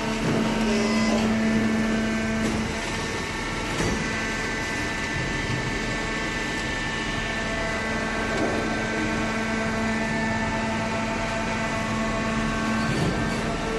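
Industrial cardboard shredder and baler machinery running with a steady hum and whine of several tones over a noisy rumble, with a short knock about four seconds in.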